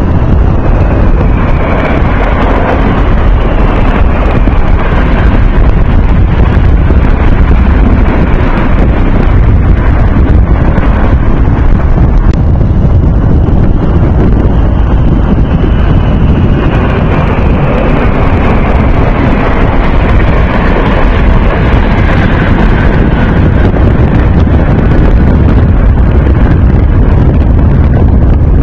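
Military jet aircraft flying low overhead in formation, their engine noise with a falling whine as each group passes, first near the start and again about halfway through. Heavy wind buffeting on the microphone covers much of it.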